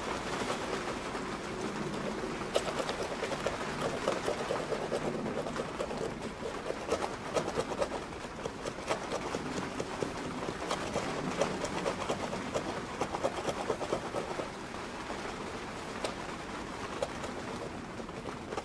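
Irregular small clicks, taps and scraping from handling brake pads and their metal retaining clips, over a steady background hiss.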